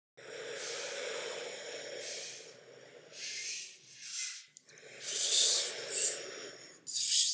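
Breathy, hissing whooshes made by a person's mouth to imitate ocean waves, rising and fading in about five swells.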